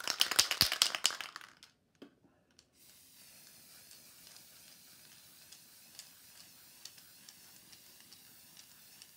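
Aerosol spray-paint can shaken hard, its mixing ball rattling in quick clicks for about a second and a half. After a short pause comes a faint, steady hiss.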